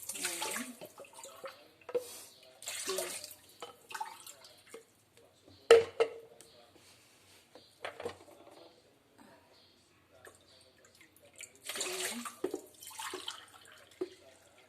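Water poured from a measuring cup into a saucepan in about four short splashy pours, each ending in a rising gurgle. A single sharp clink about six seconds in, the cup knocking against the pot.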